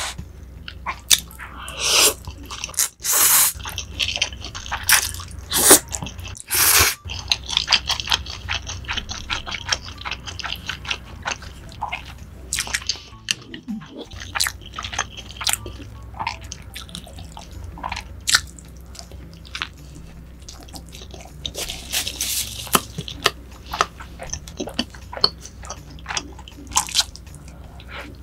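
Close-miked eating: slurping spicy Buldak stir-fried noodles, then chewing, with many wet mouth clicks and smacks. A few longer slurps fall in the first seven seconds and again a little past the middle.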